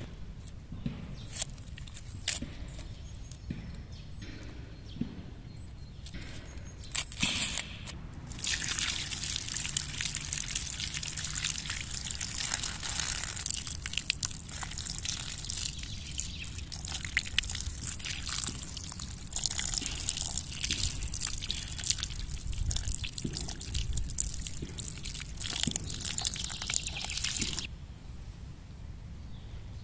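A stream of water poured over raw lamb pieces held in the hands, splashing and trickling into a wicker basket as the meat is rinsed. It starts about a quarter of the way in and cuts off shortly before the end. Before it come a few light, sharp clicks.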